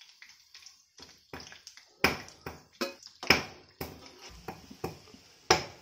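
A perforated steel skimmer tapping and scraping against an iron kadai as jackfruit jamun balls are turned in hot frying oil, over a faint steady sizzle. The clicks come irregularly and get louder and more frequent from about two seconds in.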